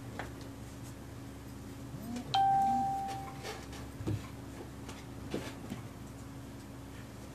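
A small bell struck once, ringing with one clear tone for about a second before it fades. Soft knocks and rustles of someone settling at a desk come before and after it.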